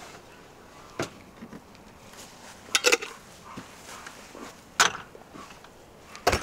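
A handful of sharp clinks and knocks a second or two apart, with a quick double one about three seconds in: glass jars with metal lids being handled on a refrigerator shelf.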